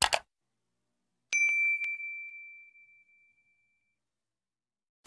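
Sound effects of a subscribe-button animation: a short mouse click, then about a second later a bell ding whose clear ringing tone fades away over about two seconds, with a few faint clicks just after it strikes.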